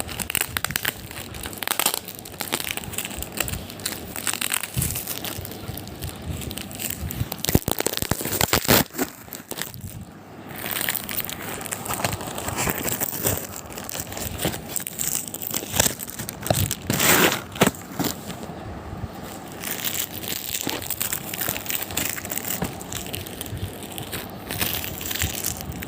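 Packaging being handled and opened: plastic and paper crinkling and crackling, with many sharp little crackles and rustles.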